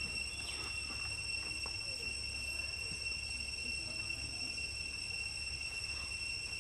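Steady outdoor background noise: a low rumble under a constant high-pitched whine, with a few faint clicks.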